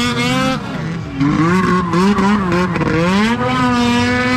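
Snowmobile engine running at high revs as the sled skims across open water. Its pitch dips about a second in and again near three seconds, then climbs back each time.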